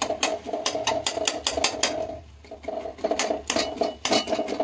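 Metal ladle scraping and clinking against a steel kadai as a thick egg bhujia gravy is stirred: repeated clinks and scrapes, with a short pause about two seconds in.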